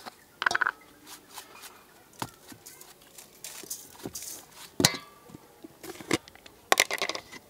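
Spoon clinking and scraping against seasoning jars and the aluminium bowl as seasonings are spooned out: a scatter of sharp clicks and short scrapes, with the loudest, a ringing clink, a little past the middle.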